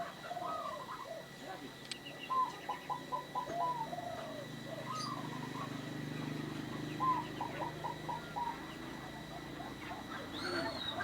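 Zebra dove (perkutut) singing: two runs of about five quick, staccato cooing notes, the first beginning about two seconds in and the second about seven seconds in, with scattered single notes between them.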